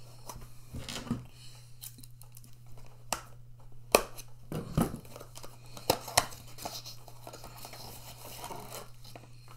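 Scissors cutting open a small cardboard box, with sharp snips and clicks and the rustle and tear of cardboard and tape. A steady low hum runs underneath.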